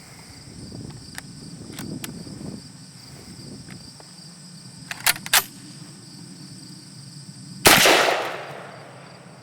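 A single 12-gauge shotgun blast from a Browning Auto-5, about three-quarters of the way in, ringing out for about a second. It comes after a few faint clicks and two sharp clicks, with steady insect chirring behind.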